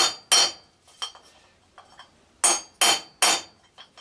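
Hammer driving a pin in an aluminum push mower flywheel with a punch: five sharp, ringing metal-on-metal blows, two at the start and three in quick succession near the end, with a few light taps between.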